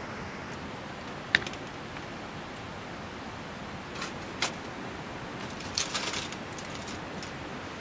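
A sharp click about a second in, two softer clicks around four seconds, and a short metallic jingle like keys about six seconds in, over a steady rushing background noise.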